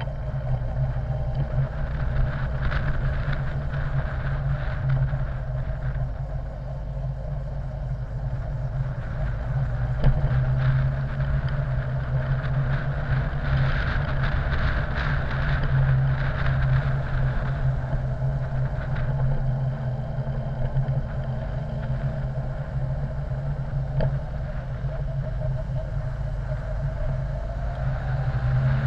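Honda X4 motorcycle's inline-four engine running steadily while riding, heard through a bike-mounted camera as a loud, even low hum with road noise, and a single sharp knock about ten seconds in.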